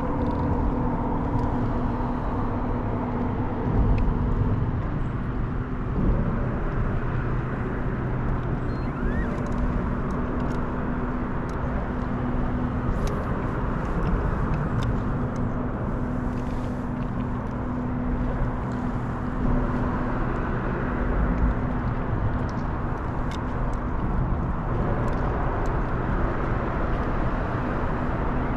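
Fishing boat's motor running steadily with an even hum, over a wash of noise.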